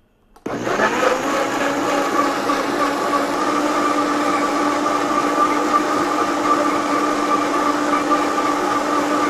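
Countertop blender switched on about half a second in and running steadily, liquefying fresh coconut meat with coconut water, lemon juice, water, garlic and seasonings.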